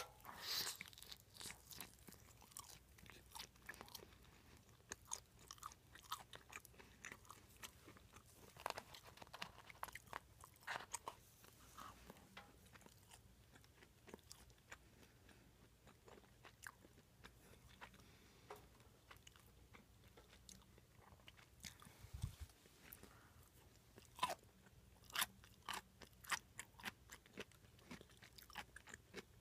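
Close-miked chewing of food: irregular crunches and small mouth clicks, loudest about half a second in and again near the end.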